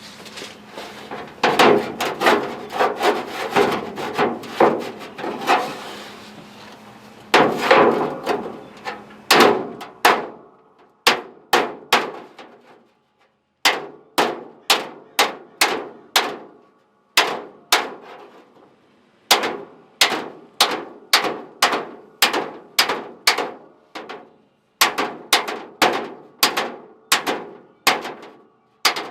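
Body hammer striking the steel hood sheet metal against a dolly: rapid strikes at first, then groups of separate ringing blows. The blows are knocking down high spots around old bolt holes, which the bolts pulled up, so the metal lies flat enough to weld.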